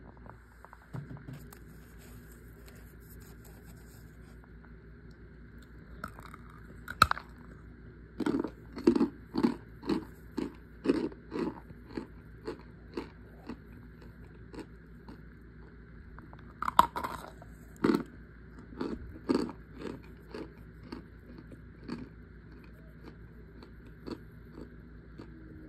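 Chunks of packed cornstarch being bitten and chewed close to the microphone. A sharp bite about a quarter of the way in is followed by a run of rhythmic crunching chews, about two a second. A second bite comes near the middle, then more chewing.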